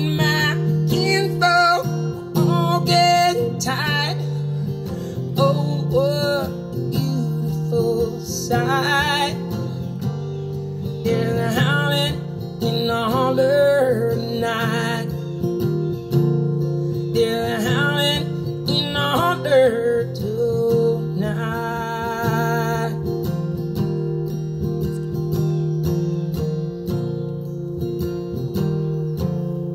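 Acoustic guitar strummed and picked, with a man's singing voice over it that stops about three-quarters of the way through, leaving the guitar playing alone and gradually getting quieter.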